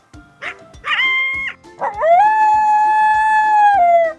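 Coyote howling: a short high yip-like call about a second in, then one long howl that rises in pitch and is held before tailing off near the end. Light background music runs underneath.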